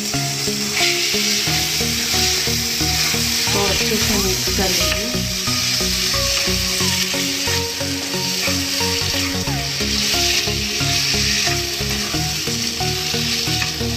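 Raw boneless chicken pieces sizzling in hot oil and onion-spice masala in a kadhai, being stirred and turned with a wooden spatula. Soft background music with held, stepping notes plays underneath.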